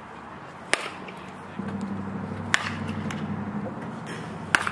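Softball bat striking pitched balls: three sharp cracks about two seconds apart, the last the loudest. A low steady hum comes in about halfway through.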